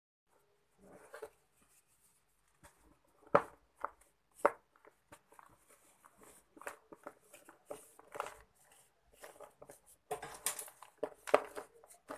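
Dry sand-cement chunks crumbled by hand over a plastic tub: scattered gritty crunches and cracks, with a denser hiss of falling powder about ten seconds in.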